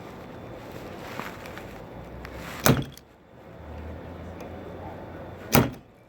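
Two loud, short thumps about three seconds apart, over a faint steady background.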